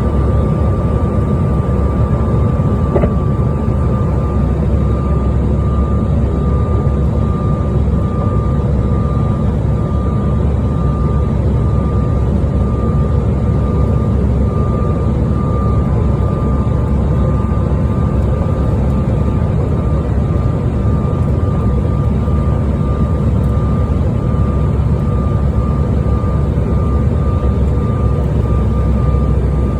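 Airliner cabin noise in flight: a steady low rumble with a thin, steady whine above it.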